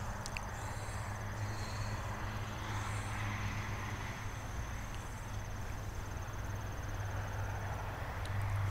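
Night insects trilling: one steady, rapid, high-pitched pulsed trill that stops shortly before the end, with softer repeated chirps above it, over a constant low hum.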